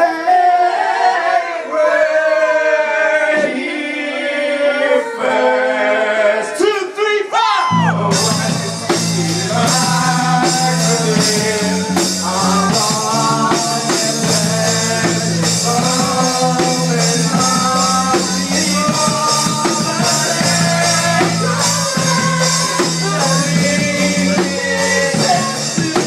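Live rock band with singing. For the first eight seconds mostly voices sing, then about eight seconds in drums with cymbals and a bass line come in under the singing.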